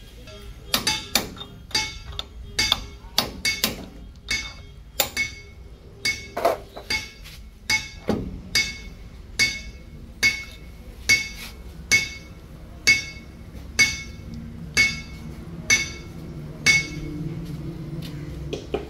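Hammer striking metal over and over, each blow ringing. The blows come quickly and unevenly at first, then settle into a steady beat of about one a second.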